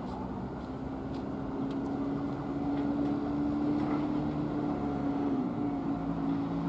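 Electric multiple unit's traction motors humming with a steady pitched whine that drifts slightly upward as the train moves. A second, higher whine joins about two-thirds of the way in.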